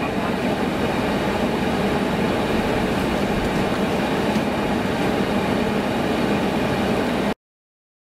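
Steady engine and road noise from inside the cab of a slowly moving vehicle. It cuts off abruptly near the end.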